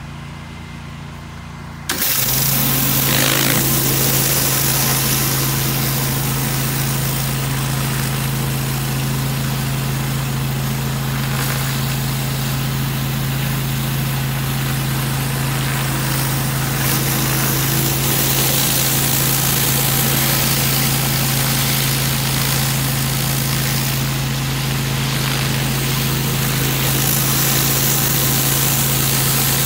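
Pressure washer's petrol engine running steadily, with the loud hiss of high-pressure water spray. About two seconds in the sound jumps suddenly louder as the spray starts, with a brief rising whine.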